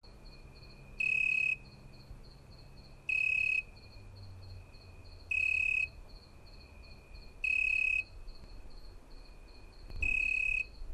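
Crickets chirping in summer ambience: a steady high trill with a louder, half-second chirp about every two seconds, five in all.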